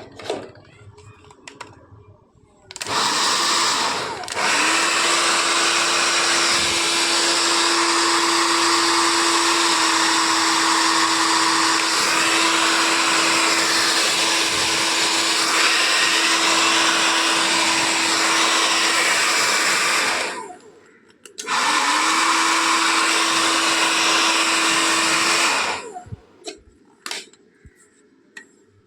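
Hair dryer switched on and running with a steady rush of air and an even motor hum. It is switched off about twenty seconds in, runs again for about four seconds, then is switched off, as the newly fitted switch is tested. A few small clicks follow.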